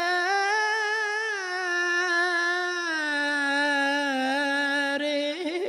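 A man's solo voice singing an unaccompanied Islamic ibtihal, drawing out one long melismatic note with small wavering ornaments. The note steps down in pitch about three seconds in and turns again near the end.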